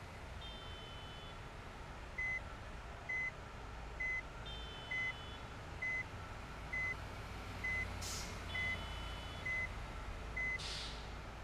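An electronic beeper sounding a short, high, single-pitched beep about once a second, ten times in all, over a low steady rumble. Two short hisses come near the end.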